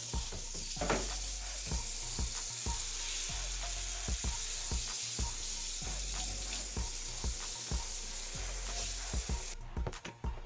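Water spraying from an ionic shower head, a steady hiss that cuts off suddenly near the end, over background music with a bass beat.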